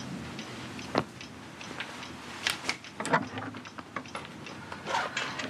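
Handling noises of someone dressing for the outdoors: a sharp knock about a second in, then short bursts of clicks and rustling of clothing and boots as they are pulled on.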